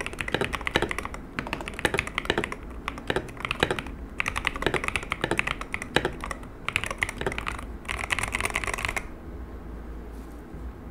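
MadLions MAD68 R Hall-effect magnetic-switch gaming keyboard being typed on in quick bursts of key clicks with short pauses between them; the typing stops about nine seconds in.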